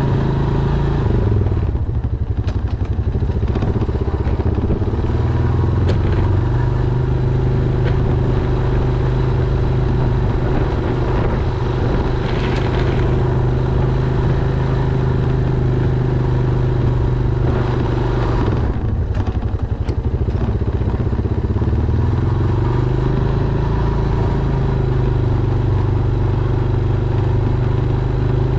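Honda Foreman ATV's single-cylinder engine running steadily. It eases off briefly about two seconds in and again near the twenty-second mark, then picks back up.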